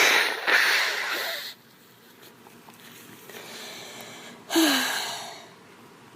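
A girl coughing: a loud noisy cough for about the first second and a half, a breath drawn in, then another cough about four and a half seconds in with a short falling voiced note.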